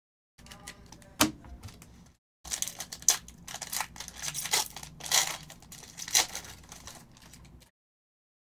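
Foil trading-card pack wrapper crinkling and tearing as it is ripped open: a run of sharp crackles, after a single click about a second in.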